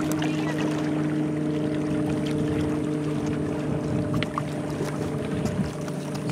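A motorboat engine drones steadily across the water, with light splashes as a smallmouth bass is lifted out of the water by hand.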